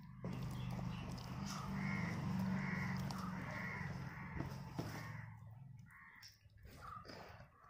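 Crows cawing, a run of short caws about two a second, over a low rumble that fades out near the end.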